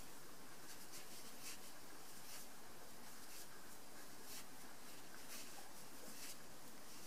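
Soft, faint scratching of yarn being drawn over a metal crochet hook and through loops as stitches are worked, about one stroke a second over a steady low hiss.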